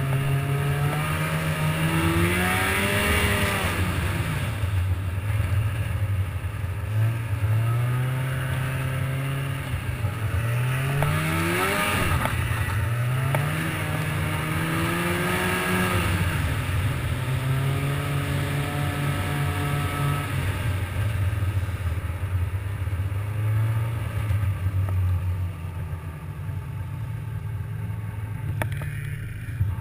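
Snowmobile engine running under way, its pitch climbing and falling several times as the throttle is opened and eased, then holding steadier later on.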